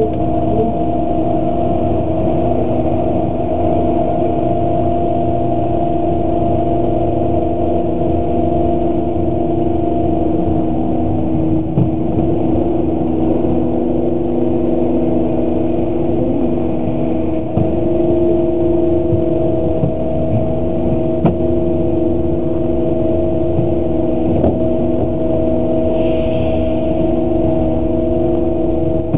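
Steady engine drone and road rumble inside a moving bus, holding an even pitch with no revving or braking.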